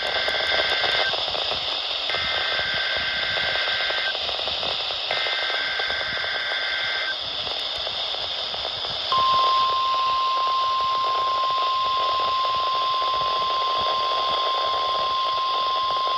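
NOAA Weather Radio Required Weekly Test alerting signal over radio static hiss. First the screechy two-tone SAME digital header bursts: the tail of one, then two more, each about two seconds long with a second's gap. After a short pause, about nine seconds in, the steady 1050 Hz warning alarm tone starts and holds.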